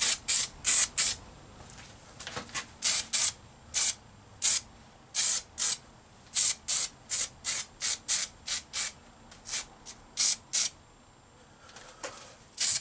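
Aerosol can of primer sprayed in a rapid string of short hissing bursts, about two a second with irregular gaps, for a light dusting coat on a welded steel bracket.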